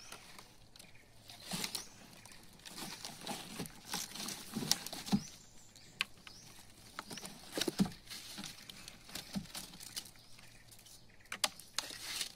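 Irregular knocks, slaps and rustling of a netful of freshly caught giant snakehead fish and the mesh of the net against the floor of a wooden boat, with a few heavier thumps about halfway through.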